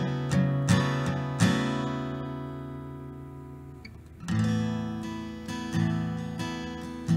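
Background music of a strummed acoustic guitar. Quick strums give way to a chord left to ring and fade for a couple of seconds, and the strumming picks up again about four seconds in.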